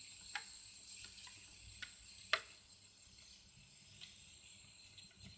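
Scattered small clicks and taps as slime is poured into a plastic toy barrel, over a faint steady hiss. The loudest is a sharp click a little over two seconds in.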